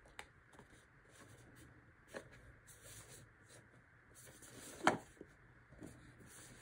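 Small cardboard blind box handled and turned in the hands: light rubbing and scuffing of the cardboard, with a few soft knocks, the loudest about five seconds in.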